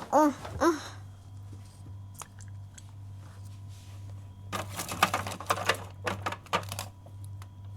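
Ice cubes clattering: a rapid run of small hard knocks lasting about two seconds, over a steady low hum. A short voiced 'hm' comes at the very start.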